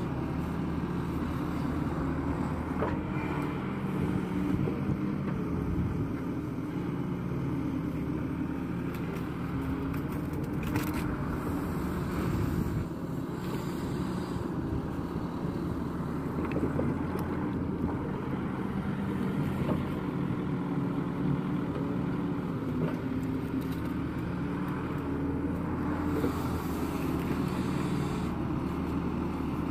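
Kato crawler excavator's diesel engine running steadily while the machine scoops and dumps wet mud, with a few faint knocks from the bucket and mud.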